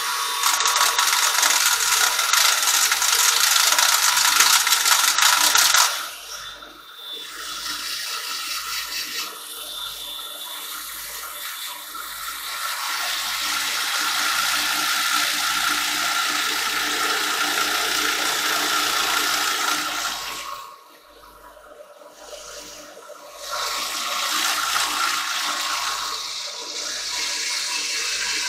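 Cordless drill spinning a round sanding pad against a silver birch bowl turning on a lathe, power-sanding with 400-grit abrasive: a steady rushing hiss, loudest in the first six seconds, easing off about six seconds in and again around twenty-one seconds, then picking up again.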